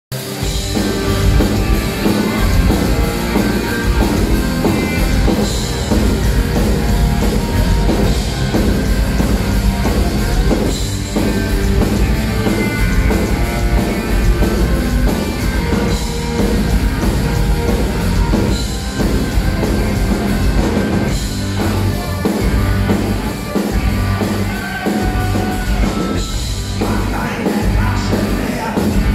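German folk-metal band playing live at full volume, with drums and electric guitars, recorded from within the crowd.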